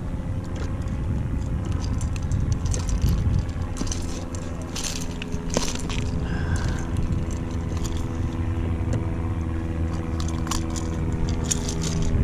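Pliers and a metal lure's hooks clicking and rattling in short, irregular clinks while a hook is worked out of a bass's mouth, with cloth rustling over a steady low hum.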